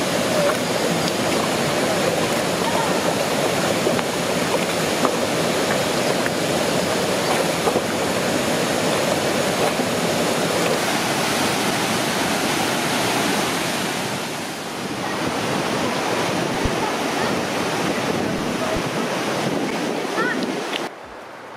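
Linville Falls and the Linville River: a steady, even rush of falling and flowing water. It dips briefly about two-thirds of the way through.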